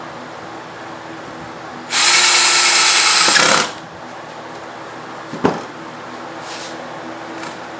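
Power drill run once at full speed for about a second and a half, then winding down as the trigger is released. A single sharp knock follows a couple of seconds later.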